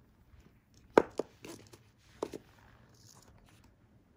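Small side-cutting pliers and monofilament fishing line handled on a cloth-covered table: a few sharp clicks and taps. The loudest comes about a second in, with a second one right after it and a close pair a little past two seconds.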